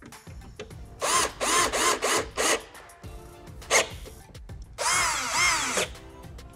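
Cordless drill-driver driving screws into a plastic bumper bracket, in four short runs, a brief blip, then one longer run of about a second near the end. Its pitch rises and falls in each run as the motor spins up and winds down.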